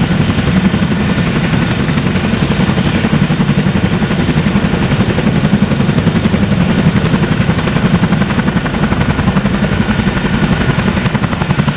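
Boeing CH-47 Chinook helicopter running on the ground with its tandem rotors turning: a steady, fast low rotor beat under a constant high turbine whine from its T55 turboshaft engines.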